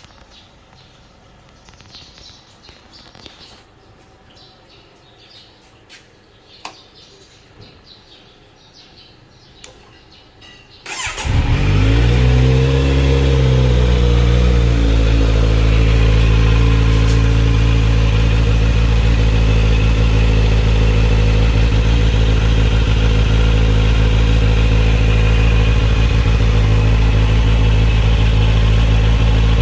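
A 2023 Kawasaki Z900's inline-four engine starts from cold about eleven seconds in, after faint background with a few clicks. Its pitch rises and falls back over a few seconds, then it settles into a loud, steady fast idle. It is running without its exhaust silencer canister.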